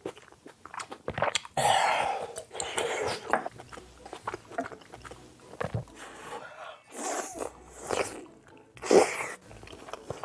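Close-miked chewing and biting as spicy ramen with chewy rice cakes and dumplings is eaten, with wet mouth sounds and small clicks, and a few louder noisy bursts about two seconds in and near the end.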